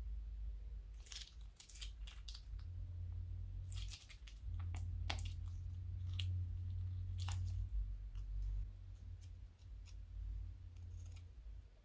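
Thick slime squeezed from a plastic piping bag into a plastic bowl, making scattered small crackling pops and squishes in irregular clusters over a low rumble of handling.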